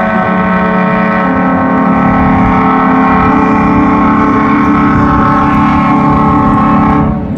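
Horn of the Murray Princess paddle steamer sounding one long, loud blast, a steady chord of several fixed tones, with a lower tone joining about a second in; it cuts off suddenly about seven seconds in.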